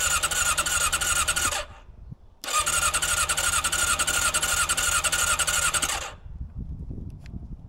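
Honda CB400 Super Four (NC31) electric starter cranking the cold inline-four with the choke pulled, without it firing. Two bursts of cranking: the first stops about a second and a half in, the second runs for about three and a half seconds. The engine is failing to start after four months laid up over winter.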